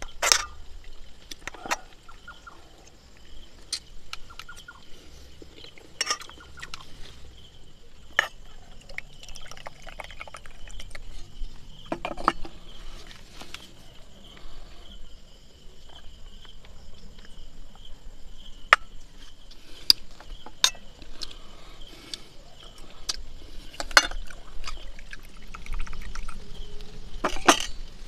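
Scattered sharp clicks and knocks, one every second or few, over a steady high-pitched tone.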